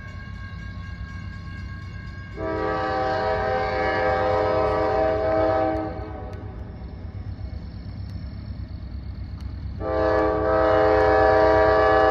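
Air horn of an approaching grain train's locomotive sounding two long chord blasts, each about three seconds, several seconds apart, over a steady low rumble.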